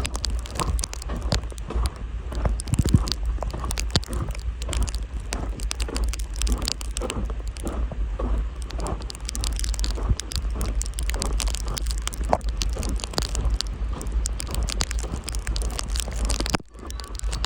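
Wind buffeting the microphone in a strong steady rumble, with a dense irregular ticking of ice pellets and freezing rain striking. The sound briefly drops out near the end.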